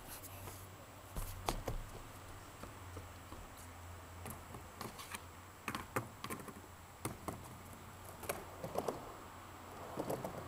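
Skateboard riding a concrete ramp: irregular sharp clacks and knocks from the board and wheels, several close together near the end, over a low steady hum.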